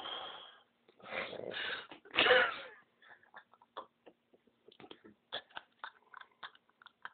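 A sleeping man snoring: three loud, rasping snores in the first three seconds, then a run of short, faint clicks and smacks.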